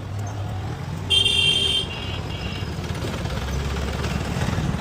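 Street traffic rumbling steadily, with a vehicle horn honking once, briefly, about a second in.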